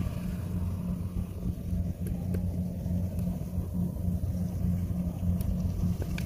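Engine of a Chinese-made rice combine harvester running steadily while it cuts rice: a low, even drone.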